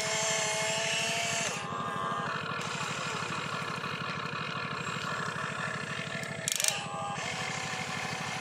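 Toy RC excavator working as it digs and swings its boom: electric motors whine and fall away in pitch as each movement stops, over a fast, steady low engine-like drone. A brief clatter about six and a half seconds in.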